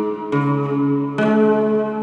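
Instrumental music: ringing chords struck one after another, a new one just after the start and another about a second in, each held and fading slowly.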